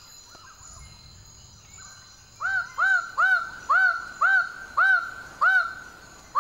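Male Raggiana bird of paradise calling: a run of about eight loud notes, each rising and then falling in pitch, roughly two a second, starting a couple of seconds in. This is the noisy display call by which females locate the groups of displaying males. Under it runs a steady high insect drone.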